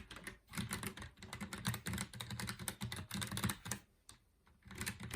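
Typing on a ROCCAT Vulcan 120 AIMO mechanical gaming keyboard: quick runs of keystrokes, each a sharp click over a low thud, pausing for about half a second near the end before the typing starts again.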